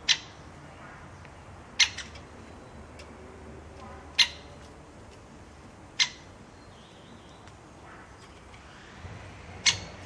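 Great spotted woodpecker giving sharp single "kick" calls, five short, high notes a couple of seconds apart.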